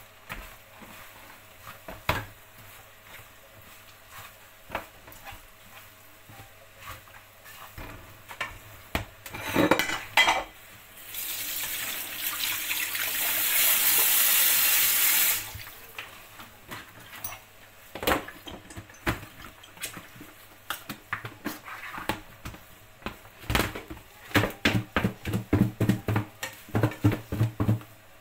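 A utensil knocking and scraping in a frying pan on the stove while rice is stirred, with scattered clicks. About eleven seconds in comes a loud rushing hiss lasting about four seconds that cuts off suddenly, and near the end a run of quick knocks, about four a second.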